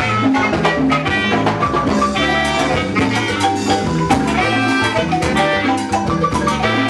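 Live cumbia band playing, with saxophones, marimba and congas over a steady dance beat.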